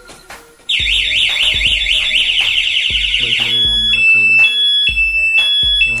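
Motorcycle anti-theft alarm siren sounding: a fast up-and-down warble starting about a second in, switching after about three seconds to a steady alternation between two beeping tones.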